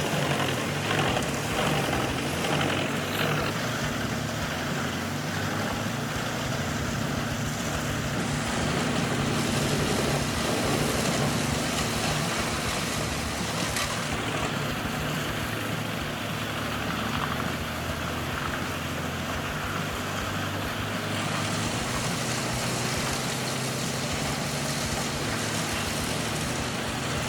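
Large wood chipper running steadily, its engine droning under a continuous rush of noise from the machine.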